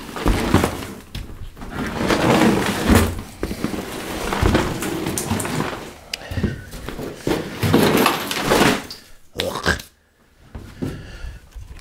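Soaking-wet truck floor carpet being dragged and rolled up off the metal floor pan: scraping and rustling in long swells, with knocks as boots shift on the floor.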